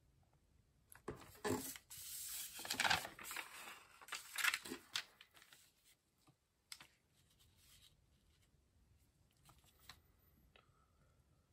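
Sheets of paper rustling and sliding as they are lifted and shifted on a bench, for about four seconds starting a second in. After that there are only a few faint light ticks and taps.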